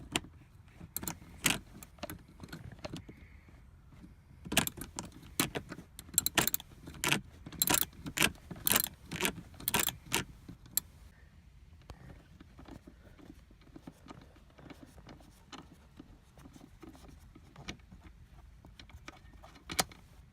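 Socket wrench turning out a seat belt buckle's mounting bolt: bursts of sharp metallic ratchet clicks, thickest for the first ten seconds or so, then fainter scattered clicks and handling of the tool.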